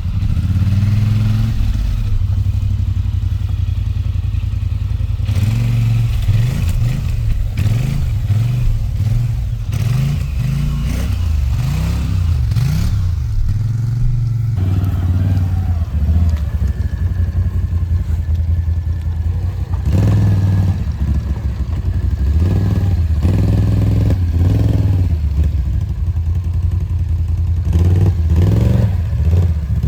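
1000 cc ATV engine revving up and down again and again under heavy load, pulling through thick muskeg mud.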